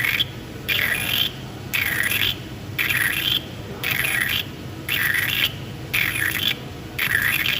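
Die sinker EDM eroding a steel mold: a crackling fizz of sparking that comes in even bursts about once a second, each a little over half a second long, as the electrode cycles in and out of the cut, over a low steady machine hum.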